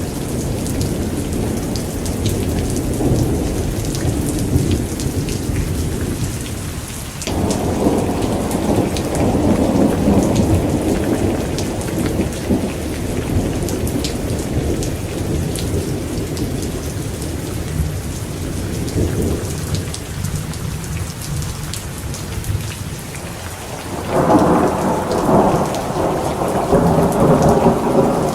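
Thunderstorm: steady heavy rain with rolling thunder. The rumbles swell suddenly about seven seconds in and again about 24 seconds in, the second one the loudest.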